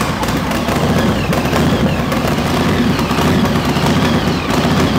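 Big custom chopper motorcycle engine running loud just after being fired up, its exhaust giving a rapid, sharp-edged string of pulses.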